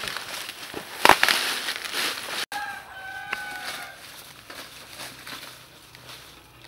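Rustling and crackling of dry leaves and brush, with a sharp crack about a second in. After a sudden cut, a rooster crows once, a held call of about a second and a half.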